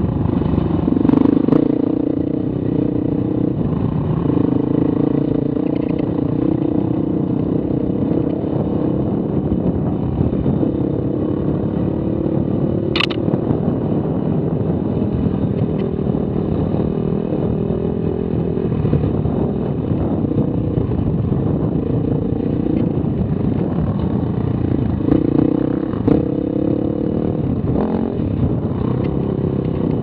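Dirt bike engine running under changing throttle, its revs rising and falling as the bike is ridden over a rough, rocky trail, with clattering from the bike jolting over the ground. A brief sharp high-pitched sound comes about halfway through.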